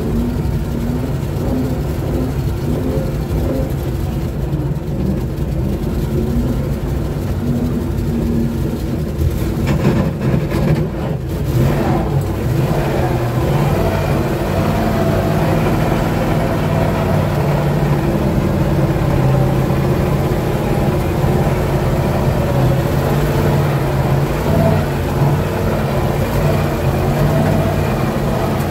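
GAZ-66 truck's engine running under load as it drives off-road, heard from inside the cab, with the engine note shifting a little in pitch. There is a brief dip about eleven seconds in.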